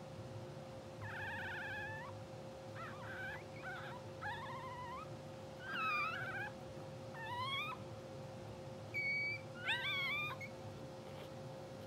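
Newborn English bulldog puppies squeaking and whimpering in their sleep: about seven short, high cries, some rising and some falling, one every second or so. A steady low hum runs underneath.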